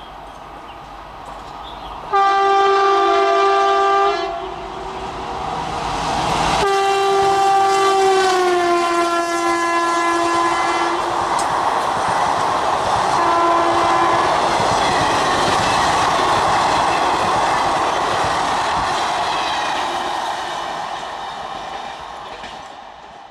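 Electric locomotive hauling a passenger express sounds its horn: one blast, then a longer one whose pitch drops as the engine passes, then a short toot. The coaches run by with a loud rushing clatter of wheels that fades away near the end.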